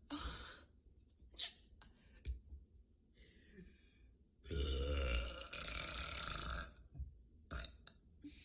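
A girl burping: one long, loud burp of about two seconds midway, with short, sharp hiccups and smaller sounds before and after it.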